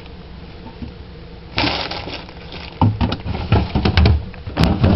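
Food packages being handled and moved about: a plastic rustle, then a quick run of crinkles, clicks and light knocks.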